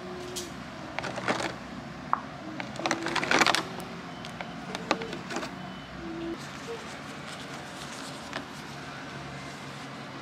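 Rustling and light clicks as small camera-microphone accessories are handled, the busiest stretch about three seconds in, with faint voices in the background.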